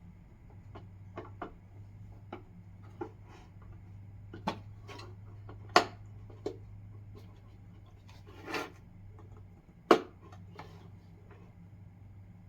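Scattered clicks and knocks of the bird feeder's plastic parts and packaging being handled, with two sharper knocks about six and ten seconds in and a brief rustle just before the second. A steady low hum runs underneath.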